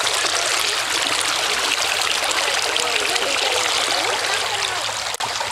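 Shallow, sandy stream water running and trickling close by, a steady rushing sound, with a brief break near the end.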